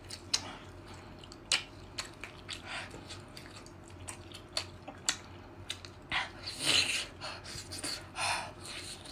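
Close-miked eating: biting, tearing and chewing food, heard as a run of sharp wet clicks and smacks. Longer noisy bursts come a little after six seconds in and again after eight seconds, the loudest part.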